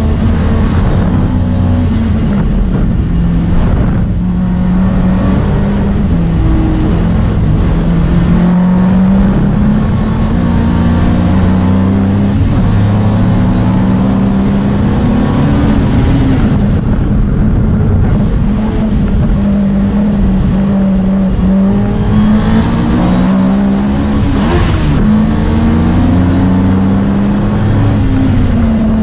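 Opel Kadett race car engine heard from inside the cabin under hard racing, its pitch climbing and falling back again and again through gear changes and lifts. Wind and road noise run beneath it, and there is a brief sharp noise about 25 seconds in.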